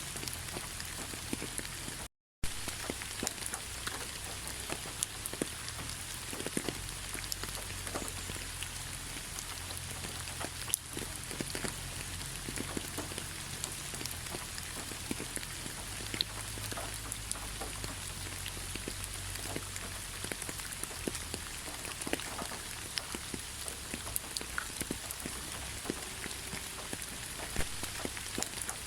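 Steady rain, an even hiss with many single drops ticking; the sound cuts out completely for a split second about two seconds in.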